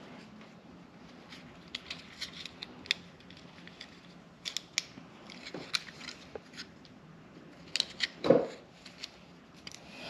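Wire cutters snipping and clicking on thin wires: a scattered run of short, sharp clicks, with one louder clunk about eight seconds in.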